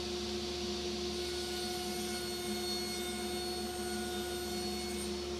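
Table saw motor running at full speed with a steady whine while a plywood panel is fed across the table through the blade.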